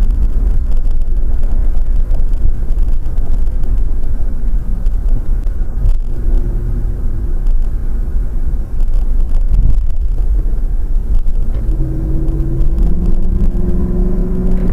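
Car engine and road noise heard from inside the cabin while driving: a heavy, steady low rumble. Near the end an engine note comes in and rises slightly.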